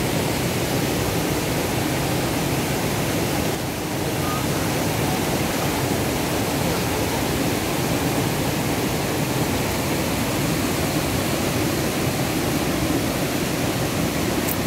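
Shallow stream rushing fast over bedrock: a steady, loud rush of water that dips only briefly about four seconds in.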